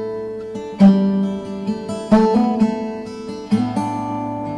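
Background music on acoustic guitar: plucked chords struck about once a second and left ringing.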